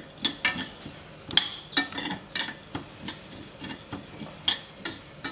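A spoon stirring whole spices (cumin, black pepper, coriander seeds, ajwain) as they dry-roast in a pot, with irregular scrapes and clinks against the pot, about two or three a second, and the seeds popping in the heat.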